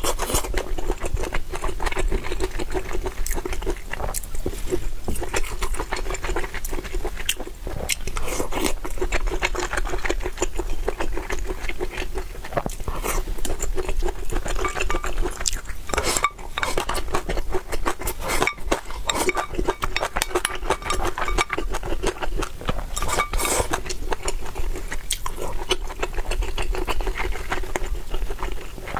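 Close-miked eating sounds: wet chewing and biting with a constant patter of small clicks, and utensils scraping and tapping against a bowl or plate.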